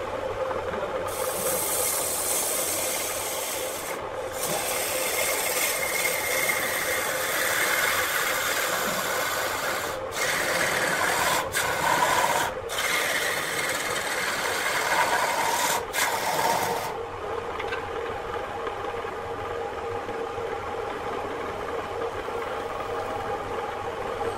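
Wood lathe running with a steady hum while a hand-held tool rasps against the spinning wooden vase blank. The rasping goes on in long passes with a few brief breaks and stops about two-thirds of the way through, leaving the lathe running alone.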